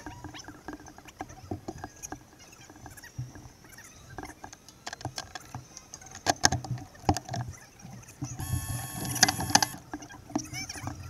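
Irregular clicks, knocks and rustles of a mechanic's hands working in the cockpit of a single-seater race car around the seated driver, with the engine off. A denser, louder cluster of knocks comes about eight and a half seconds in, with a brief steady whine over it.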